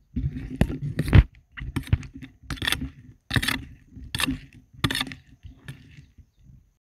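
Wooden spatula scraping and knocking against a nonstick kadai while stirring masala-coated paneer cubes, in a run of quick strokes that thin out and stop near the end.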